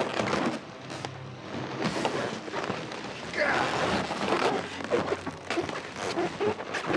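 A busy mix of film sound effects: crackling, rushing noise with scattered knocks and thuds, swelling about halfway through.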